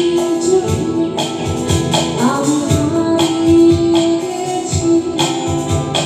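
Live band music: a woman singing a melody with long held and gliding notes over electric guitar and a steady percussion beat.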